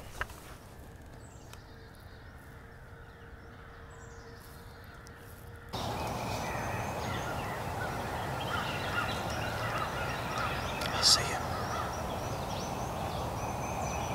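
A wild turkey gobbler gobbling, loudest about eleven seconds in, with songbirds calling around it. The first few seconds are quiet, and the background gets suddenly louder about six seconds in.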